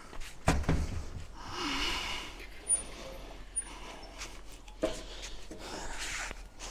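A man breathing hard and snorting with effort while straining to shift a heavy load, with a heavy thump about half a second in and a sharper knock near five seconds.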